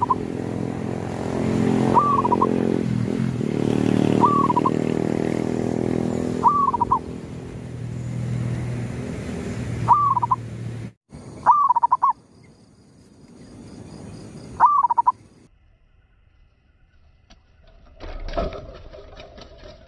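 Caged zebra dove (perkutut) giving short, sharp calls about every two seconds, over the steady drone of an engine that cuts off about eleven seconds in. After that come more single calls against a quiet background, and near the end a drawn-out "pooiiiinnn" note with some clicks.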